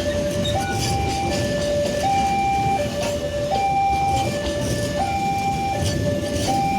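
Level crossing warning alarm sounding its electronic two-tone signal, alternating high and low about every three quarters of a second, which warns that a train is approaching. A steady rumble runs underneath.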